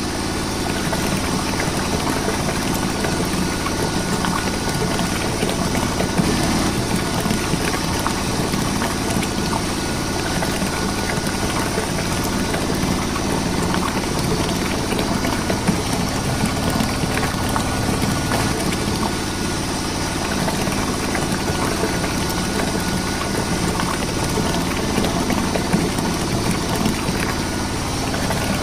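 A motor running steadily at an even pace, like an engine idling, with no change throughout.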